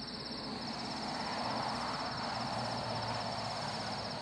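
Crickets chirping in a steady, rapid pulsing trill, with a soft rushing noise swelling and fading in the middle.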